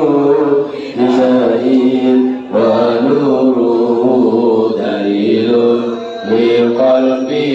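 A man chanting an Arabic prayer in long, drawn-out melodic notes, with short pauses for breath between phrases.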